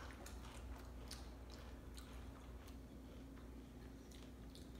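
Faint crunching and chewing of crisp Pringles Loud Spicy Queso chips, with scattered short crackles at irregular intervals.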